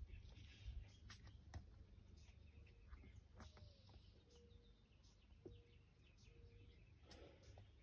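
Near silence: a few soft taps and scuffs of a climber's hands and shoes on the rock, with faint, short bird calls in the middle.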